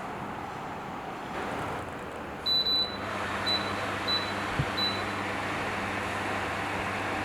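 A 140 W air cooler fan running with a steady rush of air. About two and a half seconds in, its control panel beeps once, then three shorter beeps follow roughly every half second. After the beeps the airflow gets somewhat louder and a low hum comes in.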